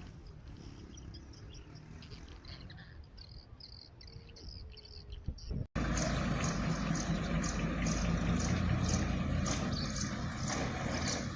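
A heavy earthmoving machine's engine running at a distance, with high bird or insect chirps over it. Then a sudden cut to the machine's engine running much louder and closer, with a faint regular ticking about twice a second.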